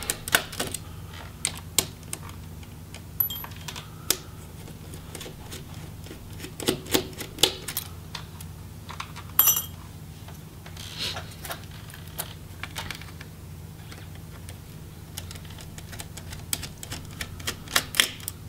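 Scattered small clicks and taps of a small Phillips screwdriver working tiny screws out of a laptop's internal USB board, with the screws and tool being handled and set down, over a steady low hum.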